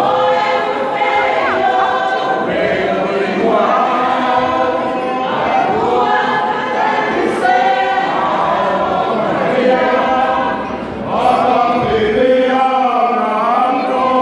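A choir of many voices singing together unaccompanied, in held, changing chords.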